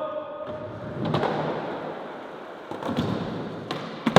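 Skateboard wheels rolling over a wooden ramp, with a few light clacks and a sharper knock at the end.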